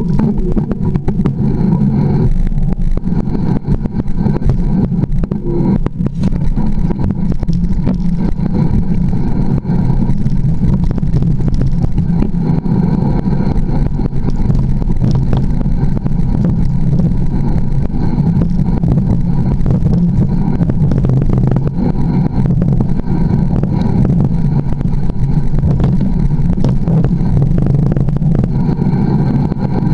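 Mountain bike rolling down a dirt and root singletrack: steady low rush of wind on the bike-mounted camera's microphone, with tyre rumble and many small clicks and knocks from roots and stones.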